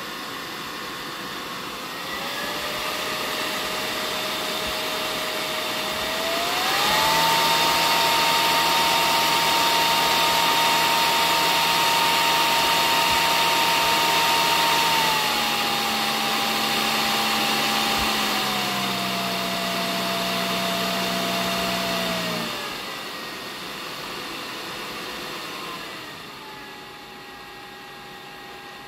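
Delta PFC1212DE 120 mm 12 V brushless fan running under a PWM speed controller, a rush of air with a pitched whine. Speed, pitch and loudness step up a couple of seconds in and again at about a quarter of the way through to full speed, hold there, then step back down in several stages, with the fan following the knob normally.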